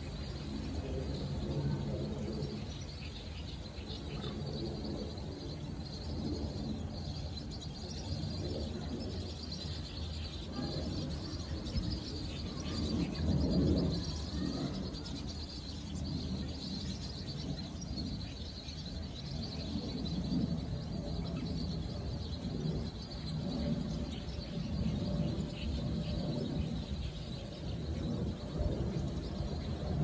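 Calls of a large flock of birds flying overhead, a constant high chirping, over a steady low rumble of outdoor noise that swells briefly about halfway through.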